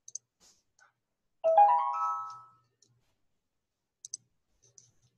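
A short computer chime about a second and a half in, stepping up through several rising notes and ringing out over about a second. Faint mouse clicks come at the start and a quick double click near four seconds.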